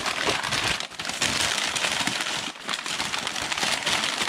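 Hands crumpling and rustling packing paper while unwrapping a wrapped dish: a dense, continuous crinkling with brief lulls.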